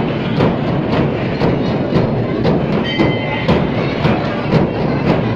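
Procession drums beating a steady rhythm, about two strokes a second, over the constant noise of a dense crowd.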